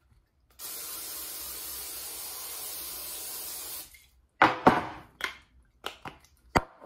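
Aerosol can of non-stick cooking spray hissing steadily for about three seconds as the pan is coated. Then a handful of sharp clicks and knocks, the loudest about a second after the spray stops, as the can is handled and its cap put back on.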